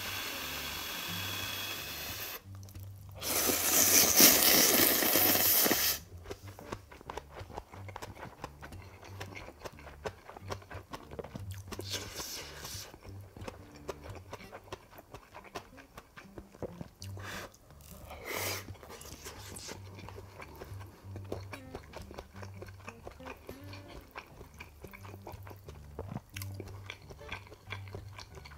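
Tonkotsu ramen noodles being slurped: a short slurp at the start, then a long, loud slurp from about three to six seconds in. After it, quieter chewing with soft mouth clicks and a few shorter slurps.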